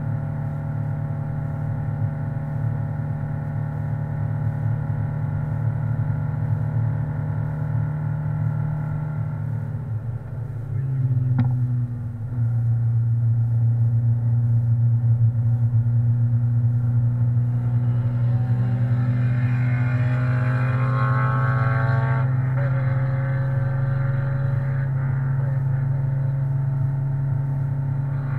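Air-cooled four-cylinder engine of an NSU Thurner RS sports car pulling uphill at steady revs, heard from inside the cockpit. About ten seconds in the engine note dips and falls in pitch, as at a lift-off or gear change, then settles back to steady running, with rising revs later on.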